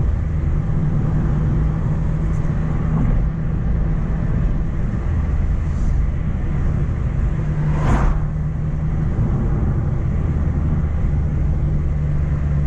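Mk1 Renault Clio heard from inside the cabin while driving: a steady low engine drone over road noise. A brief rush of noise comes about eight seconds in.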